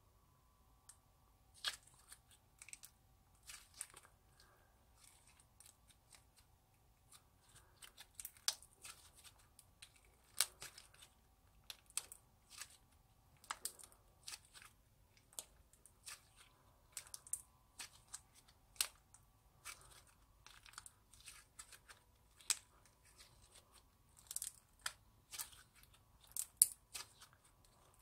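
Clear slime with glitter and shell confetti being stretched, squeezed and folded by hand, giving irregular sticky clicks, pops and crackles.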